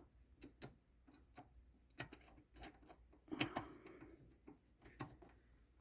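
Faint, irregular light clicks and ticks from the Craftex CX605 mini mill's feed handwheel being turned by hand for a fine adjustment.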